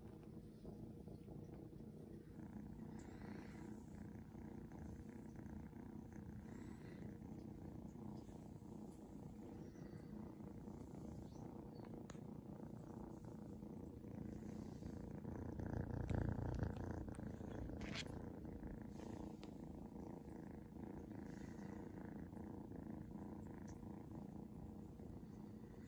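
Seal point Ragdoll kitten purring steadily while being stroked, swelling louder for a couple of seconds past the middle.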